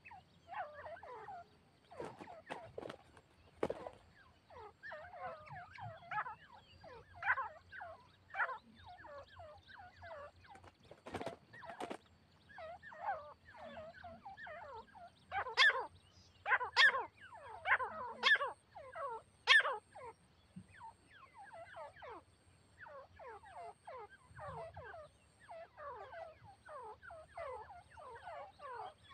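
Grey francolins (grey partridges) calling: a steady run of short, falling, chattering notes, with four much louder calls about halfway through. A few sharp knocks come in the first half.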